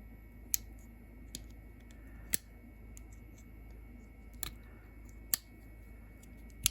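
Victorinox Swiss Army Explorer pocket knife being handled, its tools snapping open and shut with about half a dozen sharp metal clicks a second or two apart.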